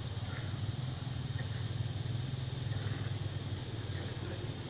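Steady low engine hum with a rapid flutter, like a motor idling, running without change.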